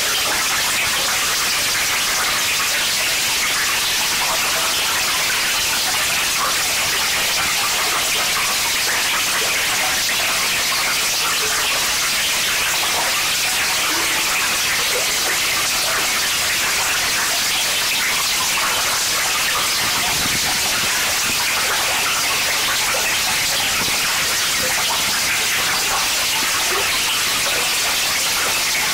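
Harsh noise-wall performance: a dense, unchanging wall of loud static hiss from noise electronics, strongest in the upper range, with no rhythm or pitch.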